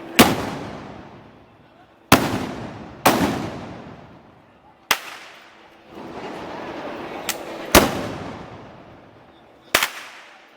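A series of loud gunpowder bangs, six strong ones and a smaller one, irregularly spaced a second or two apart, each trailing off in a long echo.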